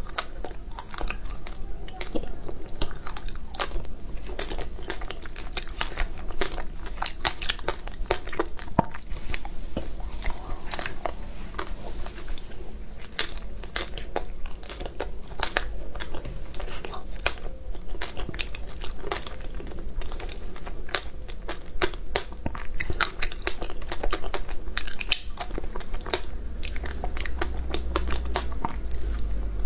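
Chewing and biting of frozen ice bars coated in matcha powder, a dense run of sharp crunches and crackles.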